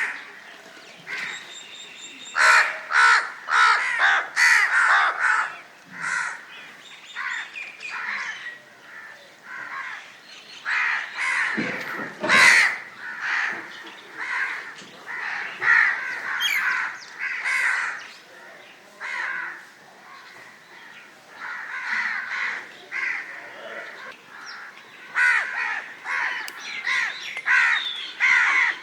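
Crows cawing, many short calls in repeated bouts with brief quieter pauses between them.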